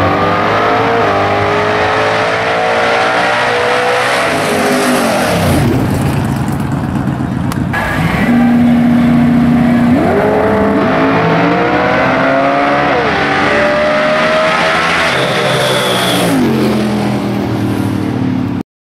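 Drag racing car engines revving hard: for the first few seconds an engine note climbs during a smoky burnout, then falls away. Later an engine holds one steady note on the line, then climbs again about ten seconds in, dropping back twice as it pulls away.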